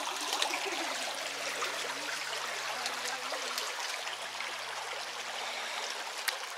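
Shallow creek water running steadily over rocks, with a few sharp clicks, the loudest near the end.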